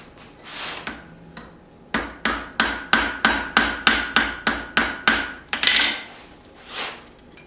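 Blacksmith's hammer tapping on the anvil and forged steel wrench: a quick, even run of about fourteen light strikes, about four a second, each with a metallic ring. Two softer scraping sounds follow near the end.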